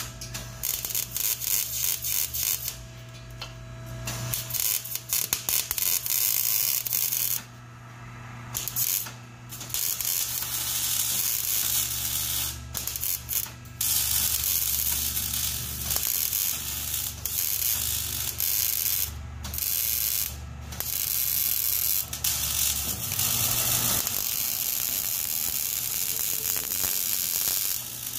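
MIG welder arc crackling in rapid bursts while a straight pipe is welded onto a car's exhaust pipe, stopping briefly several times between welds.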